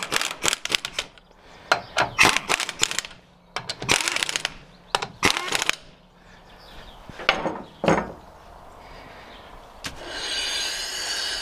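Metal tools and brake parts clicking, knocking and scraping in a run of short, irregular strokes while a front brake caliper is put back together. Near the end a power tool whirs steadily for about two seconds.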